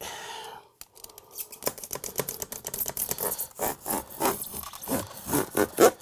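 Utility knife sawing through pink extruded-polystyrene foam insulation board along a metal straightedge: a quick series of short scratchy strokes, louder in the second half. The blade is not sharp, so it drags and rasps through the foam rather than slicing cleanly.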